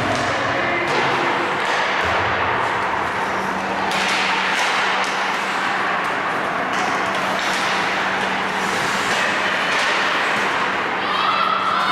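Ice hockey play in a rink: skates scraping the ice and sharp clacks of sticks and puck over a steady arena hum, with a pitched squeal starting near the end.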